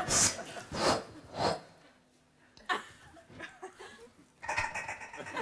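A man making sound effects with his mouth to go with mimed sweeping: three short breathy swishes in the first second and a half, then a sharp hiss and scattered smaller mouth noises.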